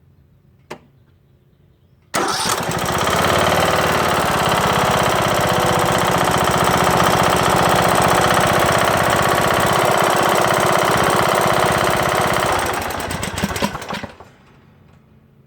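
A click, then the Briggs & Stratton engine of a Craftsman LT2000 lawn tractor catches and runs at a steady speed for about ten seconds, then is shut off and sputters to a stop. It has a loud knock that came on after its camshaft and timing gear were replaced, and its cause is not yet known.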